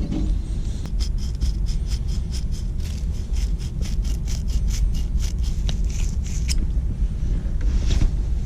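Quick scraping strokes, about four to five a second, for several seconds, with a few more near the end: a furnace flame sensor being rubbed clean of the buildup that was giving a low flame signal. A steady low rumble runs underneath.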